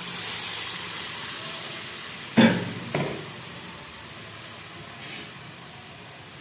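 Hot masala and chana dal in a wok sizzling and hissing as water hits it, the hiss fading over a few seconds. A little over two seconds in come two sharp knocks about half a second apart, the loudest sounds.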